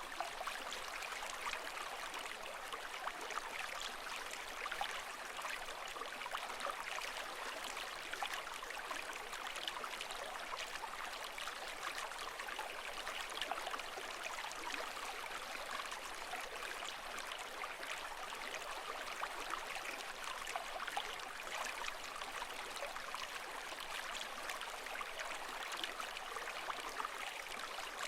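Steady running water with fine bubbling and trickling detail, even in level throughout with no surging waves.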